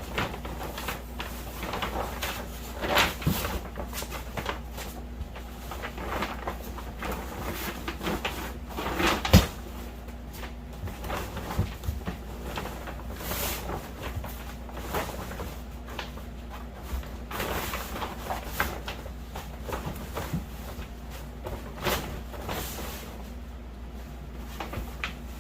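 A grow tent being put together by hand: the fabric cover rustling and the metal frame poles clattering and knocking, with one sharp knock about nine seconds in, over a steady low hum.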